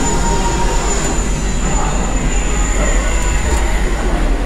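Cotton candy vending machine running: a steady mechanical whir over a low rumble, with a thin high whine that stops near the end.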